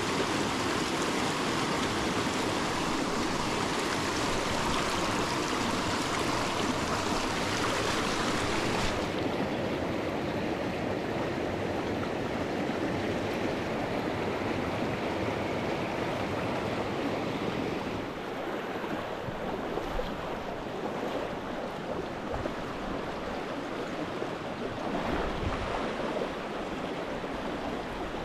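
A small rocky stream rushing over rocks and riffles: a steady rush of water. About nine seconds in, the hiss suddenly loses its high end and sounds duller, and it grows a little quieter later on.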